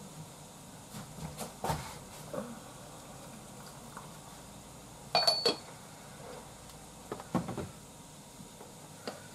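Porcelain teaware clinking and knocking as tea is made in a kyusu teapot: a few light knocks, then a sharp ringing clink about five seconds in, and another short cluster of knocks a couple of seconds later.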